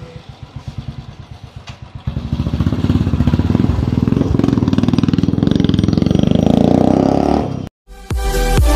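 Royal Enfield Classic 350 single-cylinder engine idling with an even thump. About two seconds in it gets much louder and runs harder as the bike pulls away, until the sound cuts off suddenly near the end. Electronic dance music starts just after the cut.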